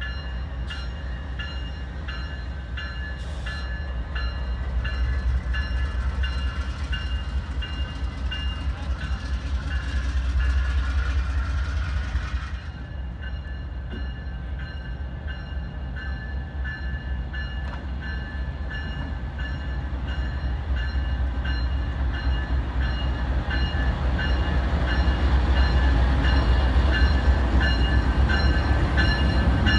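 Amtrak diesel locomotive running slowly up to the train for the locomotive change, its engine rumble growing louder as it draws close, while its bell rings steadily. A hiss under the bell cuts off suddenly about twelve seconds in.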